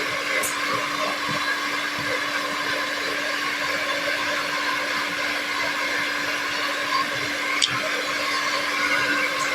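Steady whir of a small electric motor or blower with a constant low hum, unchanging throughout; two faint sharp ticks sound, one about half a second in and one near the end.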